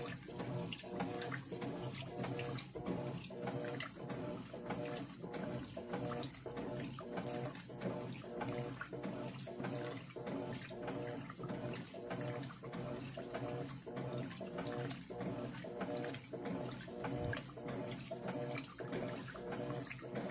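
Electrolux Turbo Economia 9 kg top-loading washing machine agitating its load in water, the motor hum pulsing about twice a second with water sloshing.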